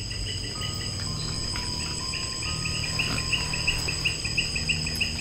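Night-time chorus of forest insects: steady high-pitched trilling of crickets, with a chirping that repeats about five times a second and grows clearer from about two seconds in.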